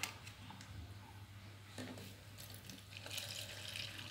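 Water poured from a plastic jug into a plastic bowl of chocolate drink powder, a steady splashing hiss that starts about three seconds in. Before that, only faint handling clicks.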